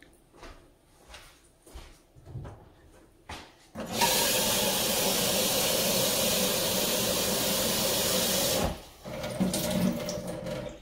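Kitchen tap running hard into a saucepan for about five seconds, then shut off sharply, followed by a softer, uneven stretch of water and handling sounds. A few light knocks come before the water starts.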